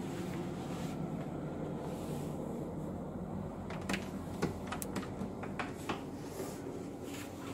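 A cluster of sharp clicks and knocks, about four to six seconds in, from a wooden cabin door being handled and opened, over a steady low hum.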